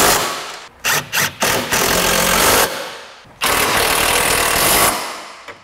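Impact wrench running down and tightening the bolts on the rear stabilizer bar bushing brackets: two short blips about a second in, then two longer runs of about a second or more each.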